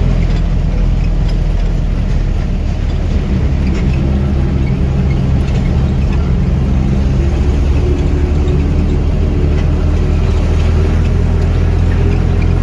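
Mitsubishi diesel bus engine running as the bus drives, heard from inside the cabin as a steady low drone. About halfway through, a higher engine note joins it.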